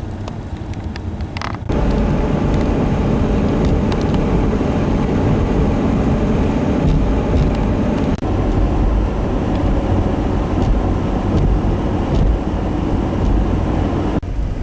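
Car being driven: steady engine and road noise, getting louder a couple of seconds in.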